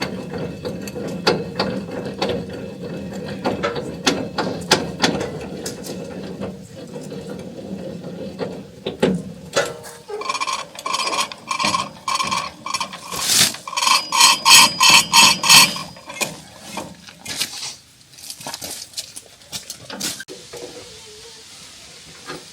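Ratchet wrench turning the sawmill track's levelling bolts, with many metal clicks. Partway through comes a fast, even run of ratcheting.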